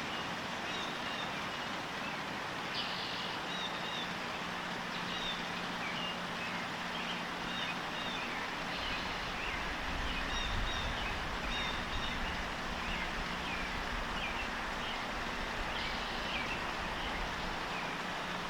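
Small birds chirping in quick short calls, again and again, over a steady rushing background noise, with a low rumble swelling up for a few seconds around the middle.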